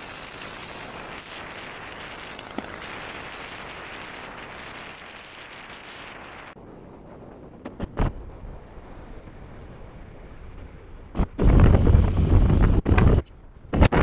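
Wind noise on the microphone of a moving motorcycle. A steady hiss gives way, after a couple of sharp knocks, to loud rumbling wind buffeting from about eleven seconds in.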